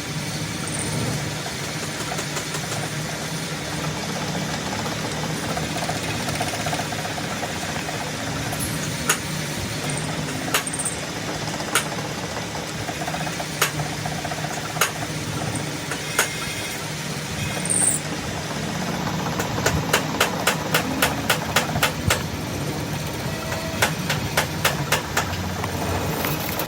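Car engine running steadily at idle, with sharp metallic clicks on top: single ones every second or two at first, then quick runs of about three a second after the middle.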